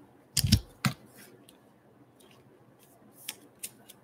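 Baseball cards and foil card packs being handled on a wooden tabletop: a quick cluster of taps and thumps about half a second in, then two short crisp clicks near the end.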